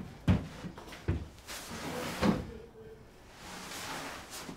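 A few knocks and thumps, three sharp ones in the first two and a half seconds, with rustling between them, as someone moves about close by.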